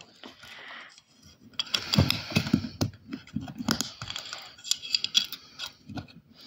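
Fingers handling and prying at a small clear plastic battery box and its wires: irregular plastic clicks, taps and scraping.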